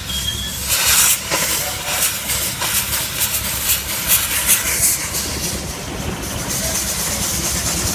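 Steam engine powering a sawmill: a run of short, irregular exhaust puffs, settling about five seconds in into a steadier rush of escaping steam over a constant low rumble.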